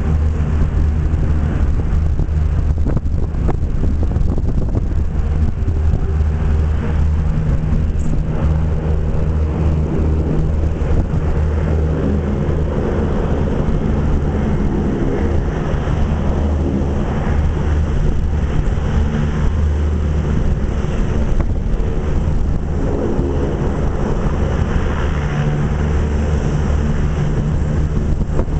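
US Navy LCAC hovercraft running on its air cushion: its gas turbines and big propellers make a loud, steady, deep droning hum.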